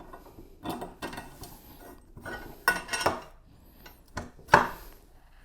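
Metal cart parts clinking and knocking as they are fitted together: a string of sharp clicks and rattles, the loudest near the end.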